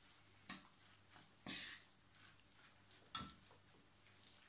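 Metal spoon mixing ground meat in a glass bowl, faint, with a few soft clicks and a short scrape of the spoon against the glass. The sharpest click comes about three seconds in.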